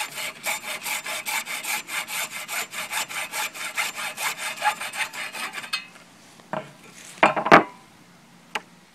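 Hacksaw cutting through 3/4-inch PVC pipe with quick, even back-and-forth strokes. The sawing stops a little over halfway through as the cut is finished, followed by a few knocks and a louder clatter.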